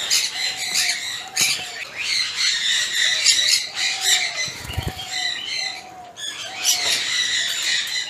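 Parrots squawking and screeching over and over in shrill, high calls, with wings fluttering as a grey parrot lands on a hand at the start.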